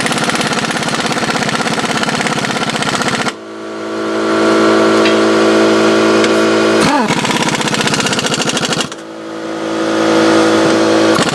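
Impact wrench hammering on a bolt in three runs. It breaks off about a third of the way in and again near the end, and each time speeds back up to a steady rapid rattle with a whine.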